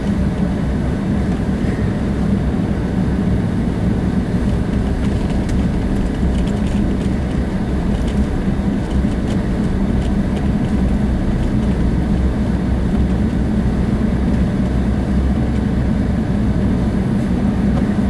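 Vehicle cabin noise while driving on snow-covered roads: a steady low engine drone with tyre and road rumble.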